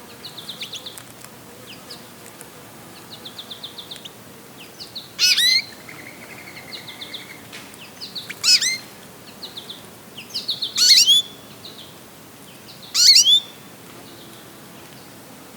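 Small songbirds twittering, most likely American goldfinches. Short rapid trills of high notes are broken by four louder, sharper calls spread through the middle.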